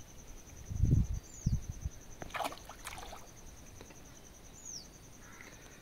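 A hooked catla splashing and swirling at the water's surface while being played on a pole, with a few dull low thumps about a second in and a short burst of splashing near the middle. Two short, falling bird chirps sound over it.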